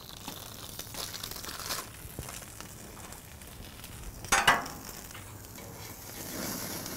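Bacon weave sizzling on a hot flat-top griddle while parchment paper is peeled off it with a papery crinkle. A short loud sound stands out about four seconds in.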